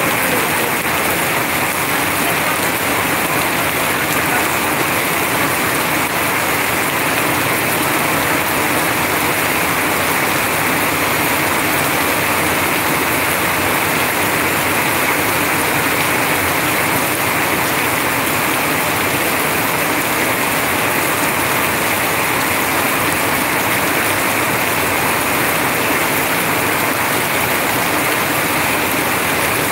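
Heavy rain falling in a steady, loud downpour, with streams of runoff pouring off a roof edge and splashing onto the wet ground.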